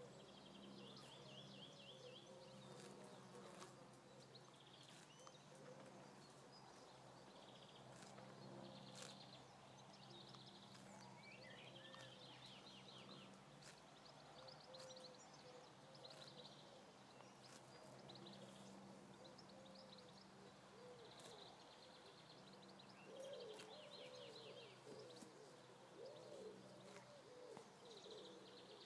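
Faint outdoor ambience: small birds chirping in short repeated trills, with lower wavering bird calls near the end. Under them runs a faint steady low hum that drops away for a few seconds in the middle.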